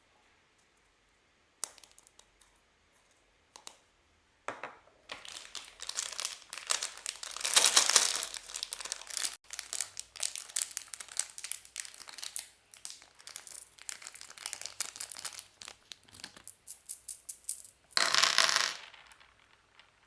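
Crinkly plastic packaging being handled in quick crackling bursts, with a louder rip of the wrapper near the end.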